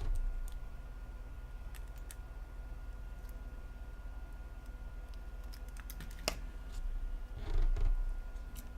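Scattered light clicks and taps of small parts being handled during Samsung Galaxy S6 disassembly, as the motherboard's cable connectors are unplugged. There is one sharper click about six seconds in.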